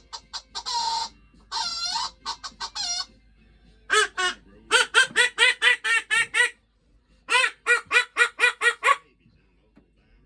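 Duck quacking sound effect: short quacks in quick runs of several, with brief pauses between the runs.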